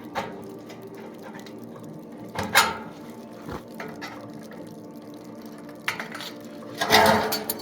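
Hand aviation snips cutting thin steel corner trim: a handful of separate sharp metal crunches and rattles, the longest and loudest near the end.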